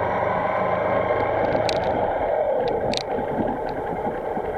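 Motorcycle running steadily while being ridden, with wind rushing over the microphone; the engine note dips briefly about halfway, and a few short sharp ticks come between about one and a half and three seconds in.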